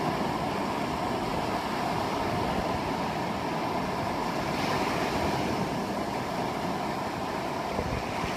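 Ocean surf washing onto the beach, a little rough, with steady wind noise on the phone's microphone.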